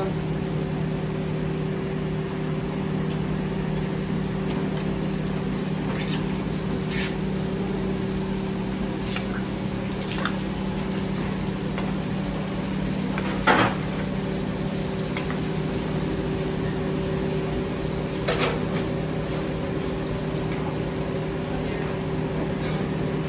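Steady low hum of kitchen equipment, with a few sharp clicks and knocks of utensils against pans and containers, the sharpest about halfway through.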